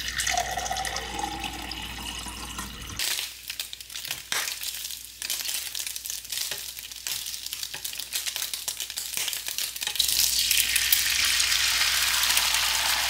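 Water poured from a pitcher into a drinking glass. Then turkey bacon sizzles quietly in a small frying pan, with scattered clicks as it is turned with tongs. About ten seconds in, egg whites are poured into the hot pan and hiss loudly and steadily.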